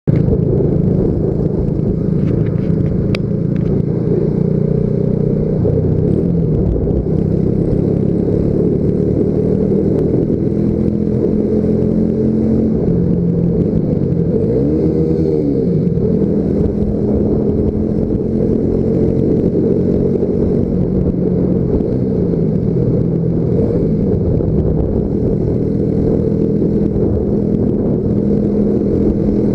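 Yamaha Factor 150's single-cylinder four-stroke engine running under throttle while riding through a road tunnel, its engine note rising and falling with the throttle and echoing off the tunnel walls. There is one marked swing in pitch about halfway through.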